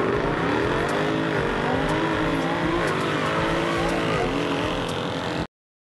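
BMW M4 F82's twin-turbo straight-six accelerating hard. Its pitch climbs and drops sharply three times as it shifts up through the gears, then cuts off suddenly near the end.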